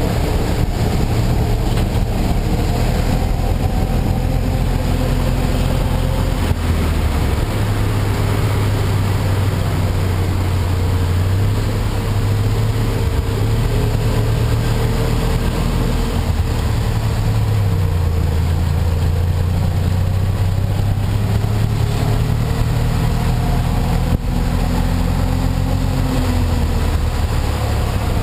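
Tuk-tuk (auto rickshaw) engine running while riding, heard from the passenger seat, its pitch stepping up and down several times with changes of speed and gear.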